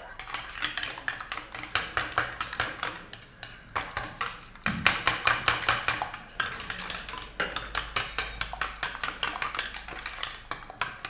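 Wire whisk beating eggs in a stainless-steel bowl, the wires clicking against the bowl several times a second.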